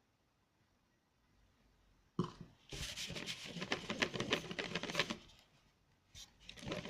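Slime of white glue and laundry detergent being mixed: after a quiet start, about two seconds in come runs of quick, sticky crackling clicks as the thickening mass is worked, with a second run near the end.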